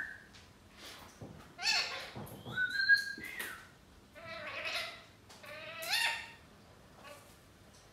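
Lutino Indian ringneck parakeet vocalising: about four short, rasping calls that glide up in pitch, with a brief held whistle about three seconds in.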